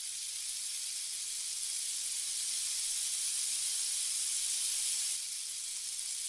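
Steady high-pitched hiss with no music or other distinct sound, dropping slightly about five seconds in.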